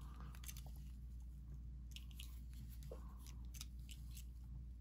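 Faint scattered clicks and soft rubbing of small die-cast Hot Wheels cars being handled and turned over in the fingers, their plastic and metal parts and wheels ticking together, over a steady low hum.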